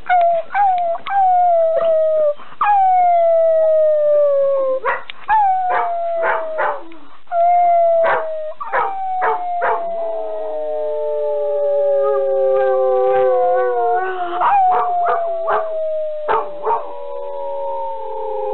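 A dog howling in long notes that slowly fall in pitch, some held for several seconds, broken in places by short yips and barks.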